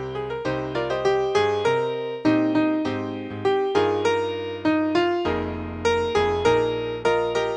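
Piano playing the accompaniment of a choral anthem, notes and chords struck about three times a second, each fading before the next.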